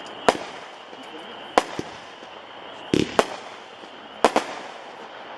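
A 200-gram consumer fireworks repeater cake, Pyro Junkie's 16-shot Mardi Gras, firing. It gives sharp bangs about a second apart, some of them in quick pairs.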